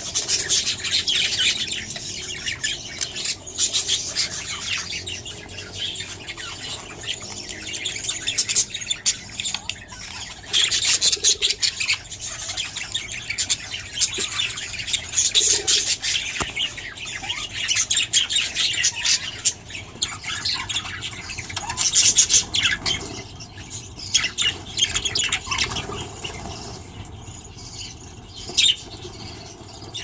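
A flock of budgerigars chattering and warbling in an aviary, a busy run of overlapping chirps and squawks.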